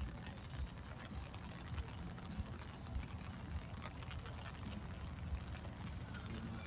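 Footsteps at a steady walking pace, with scattered small clicks and a steady low hum underneath.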